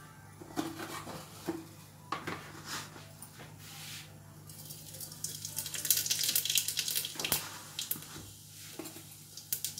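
Hot mustard oil in an aluminium kadhai crackling and sizzling, starting about halfway through and easing off before picking up again near the end, after a few light knocks of containers. A low steady hum runs underneath.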